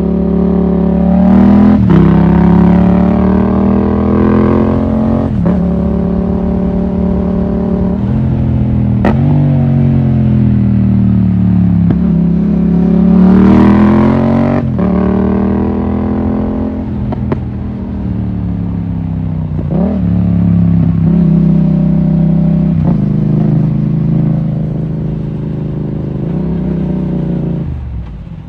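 Yamaha MT-07's parallel-twin engine under way, revs climbing and dropping again and again as it accelerates and the gears are shifted, with a short dip in revs near the end.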